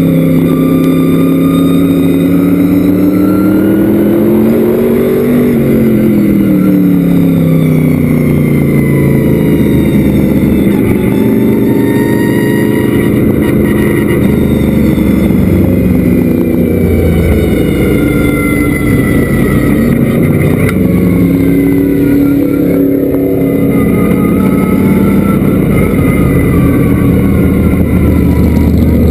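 Vintage modified race car's engine heard loud from inside the cockpit at racing speed, its pitch rising and falling several times as the car accelerates and lifts around the oval.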